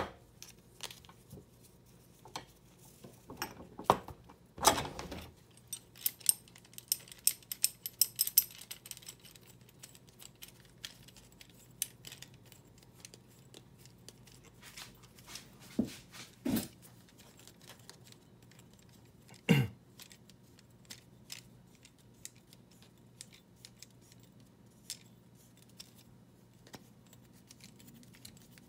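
Hands handling a motorcycle rear shock absorber, its coil spring and a nylon rope tied round it: scattered light clicks, taps and rattles of metal, with a few louder knocks.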